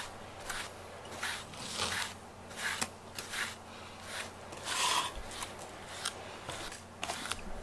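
A grooming brush stroked repeatedly through a cat's fur, a dry rasping scratch on each pass, about three strokes every two seconds.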